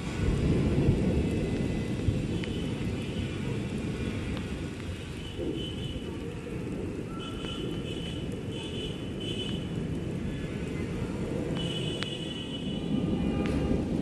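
A steady low rumble, with faint high tones coming and going above it.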